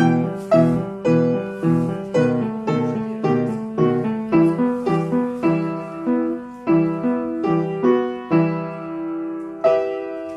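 Piano playing a steady, evenly accented accompaniment for a ballet barre exercise (battement tendu), with chords struck about twice a second. Near the end it settles on a long held chord.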